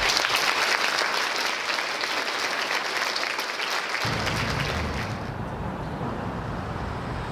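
Audience applauding, dense clapping that fades out about five seconds in. A low rumble starts about four seconds in and carries on after the clapping.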